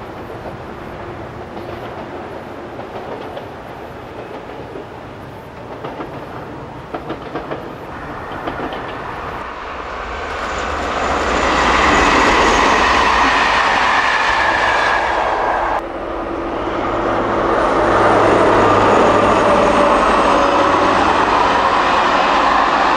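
Passenger trains on the line: faint and distant at first, then growing loud from about ten seconds in as a rake of Corail passenger coaches rolls close by. The sound breaks off abruptly about two-thirds of the way through and carries straight on with a second string of Corail coaches passing just as loudly.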